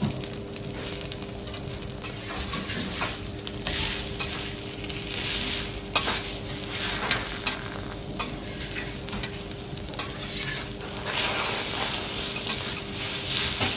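Food sizzling on a teppanyaki iron griddle, with metal spatulas clicking and scraping against the hot plate now and then.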